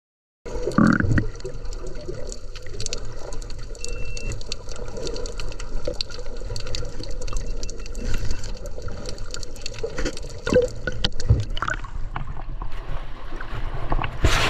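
Water sloshing and bubbling around an action camera held just under the surface, heard through its waterproof housing, with many scattered clicks and knocks. It starts suddenly about half a second in.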